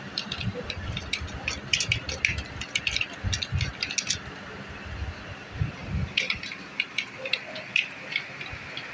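Computer keyboard keys clicking under fast typing, in two irregular runs with a break of about two seconds near the middle.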